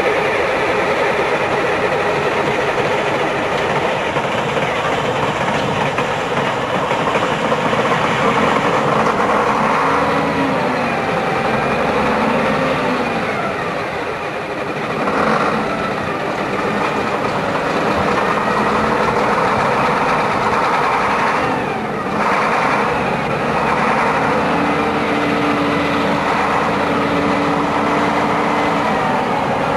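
Leyland National buses' Leyland 510 turbocharged straight-six diesel engines idling together, the engine note rising and falling slightly at times.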